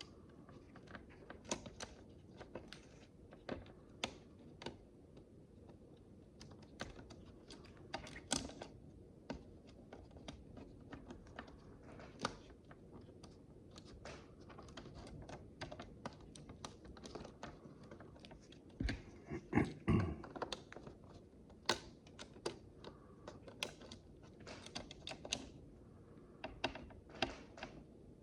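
Micro building bricks being handled and pressed together: irregular small sharp clicks and taps. A brief louder cluster of knocks comes about two-thirds of the way through.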